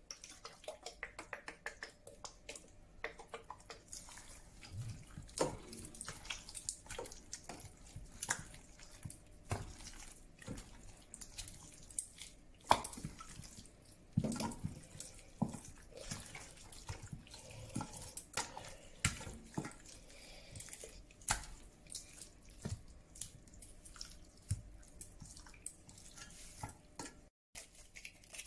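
Raw chicken pieces being rubbed and turned by hand in vinegar in an enamel bowl: wet splashing and dripping with irregular clicks and knocks against the bowl.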